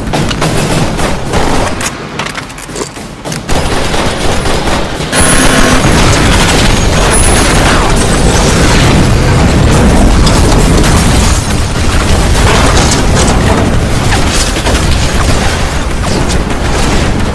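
Film battle sound effects: sharp gunshots at first, then a sudden loud blast about five seconds in that runs on as a long, dense rumble of explosions, a car among them blowing up.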